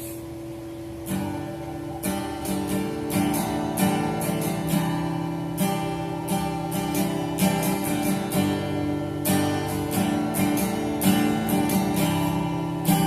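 Instrumental song intro: acoustic guitar strumming in a steady rhythm over a held note, with the strumming coming in about a second in.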